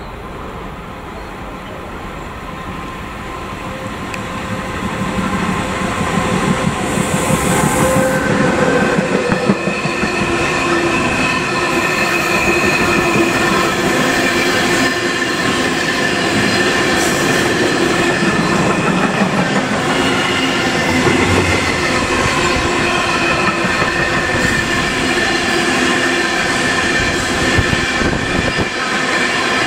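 Freight train behind an electric locomotive approaching and passing close by, growing louder over the first several seconds. It then settles into a steady rumble of wagon wheels on the rails, with clatter over the rail joints and a steady high wheel squeal.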